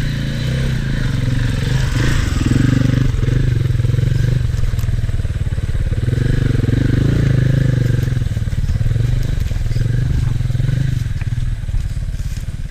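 Dirt bike engine running under load on a trail, its revs rising and falling again and again as the throttle is worked.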